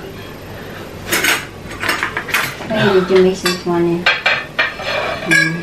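Metal serving utensils clinking and scraping against plates as food is dished out, with several sharp clinks.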